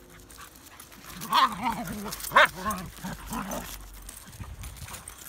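Dogs vocalizing during rough play: a run of short barks and yips from about a second in, two of them sharp and loud near the middle.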